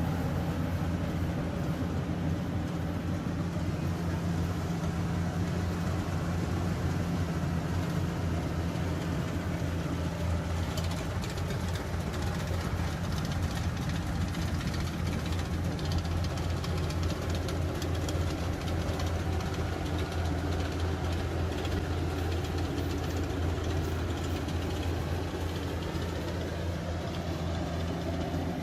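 Engine of a rice-harvesting machine running steadily at a constant speed, with some faint clatter partway through.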